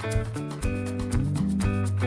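Background music: plucked, pitched notes over a bass line with a steady beat.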